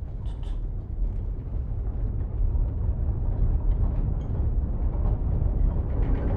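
Low engine rumble of a heavy truck, swelling steadily louder as it approaches, with a faint clink of cutlery near the start.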